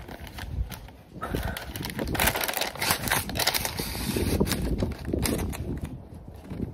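Tissue paper rustling and crinkling as a cardboard shoebox is opened and the wrapping around a pair of sneakers is pulled back, with quick crackles throughout.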